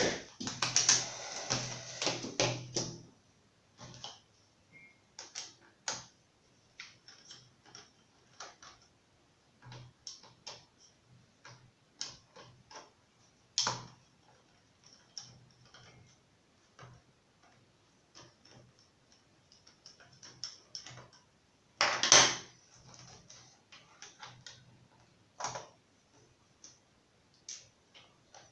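Irregular small clicks and taps of hands and tools working on a laptop's parts, denser in the first few seconds, with one louder clatter about 22 seconds in.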